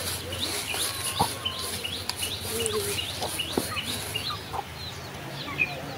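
Birds calling: rapid short high chirps, several a second, over occasional lower clucking calls and a few sharp clicks.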